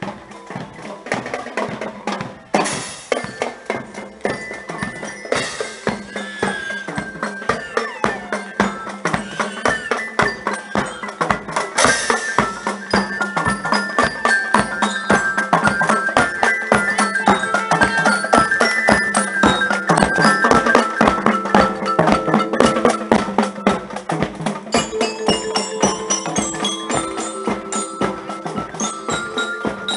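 Marching band playing as it passes: a steady drumbeat with a bright, high melody over it, growing louder partway through and easing off near the end.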